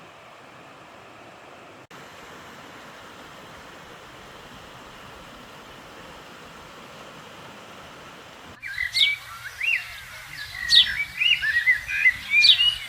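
Steady rush of a mountain stream flowing through rock pools. About two-thirds of the way through it cuts abruptly to a bird singing, a run of quick chirping calls louder than the water.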